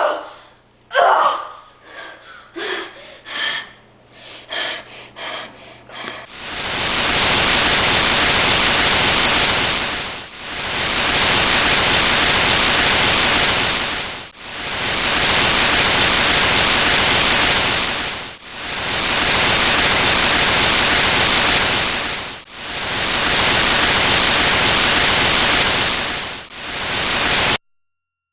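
Loud static hiss, even across all pitches, coming in five matching swells of about four seconds each like a looped clip, and cutting off suddenly near the end. Before it, for a few seconds, there are scattered soft knocks and rustles over a faint low hum.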